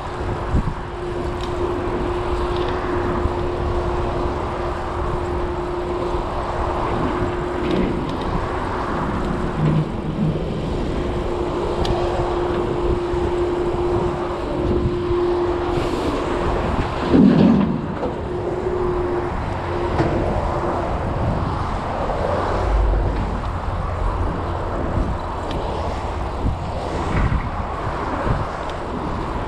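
Steady rush of passing road traffic mixed with wind buffeting the microphone of a moving bicycle, with a brief louder swell about seventeen seconds in.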